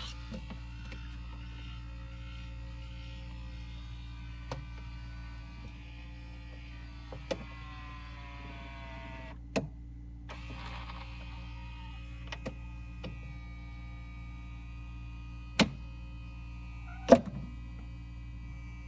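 Samsung refrigerator ice maker's small geared motor running a test cycle, twisting the plastic ice tray to dump it, with a steady whine over a low hum. Several sharp clicks come through, the loudest near the end.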